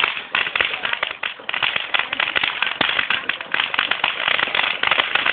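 Ground fountain firework (a "volcano") burning, giving off a dense, continuous crackle of rapid small pops.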